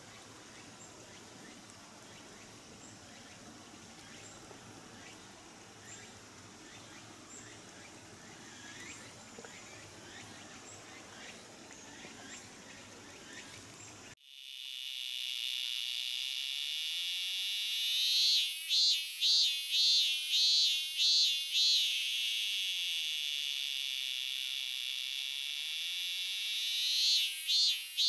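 A minminzemi cicada (Hyalessa maculaticollis) singing, cut in sharply about halfway after faint outdoor background. Its song is a loud, high steady buzz that breaks into a rapid pulsing 'min-min-min' at about two pulses a second, eases back to a steady drone, and begins pulsing again near the end.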